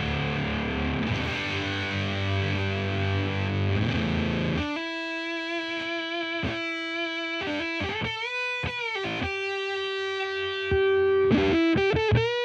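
Electric guitar played through a Devi Ever Big Distortion Sound Machine fuzz pedal into a Laney VC30 valve amp. Thick fuzzed chords for about four and a half seconds, then sustained single notes bent upward a couple of times, with a synth-like octave-up fuzz tone.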